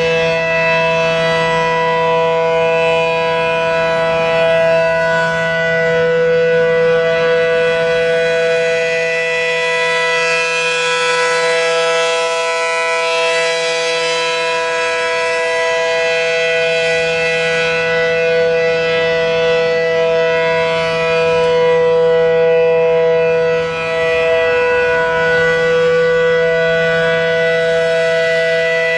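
ACA P-10 mechanical warning siren, a three-phase Allertor unit with a P-10 intake and horn, sounding a steady Alert tone. It is a held two-note chord that stays at one pitch, its loudness swelling and easing slightly, with a brief dip about 24 seconds in.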